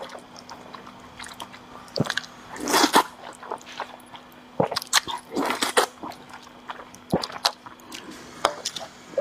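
A person slurping noodles from a spicy red soup and chewing. There are two long slurps, about three and five and a half seconds in, with wet smacking and clicking chews between them.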